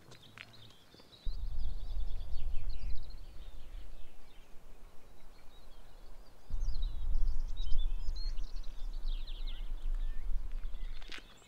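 Small birds chirping and twittering repeatedly over a low rumbling noise. The rumble comes in suddenly about a second in, eases for a moment midway and dies away near the end.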